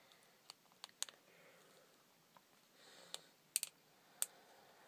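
Faint small clicks and taps of a plastic Nendoroid figure's parts being handled in the fingers: a few sharp ones about a second in and another cluster between three and four seconds in.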